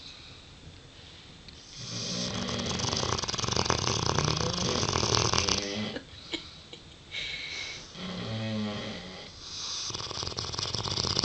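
Large mastiff-breed dog snoring. About two seconds in comes a long, loud, rasping snore. After a short pause there is a shorter pitched snore, and another rasping snore starts near the end.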